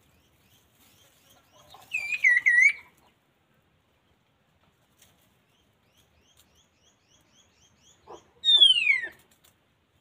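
Songbird calls: a loud warbled phrase of looping notes about two seconds in, then a faint run of short, quick chirps, then a loud falling whistle near the end.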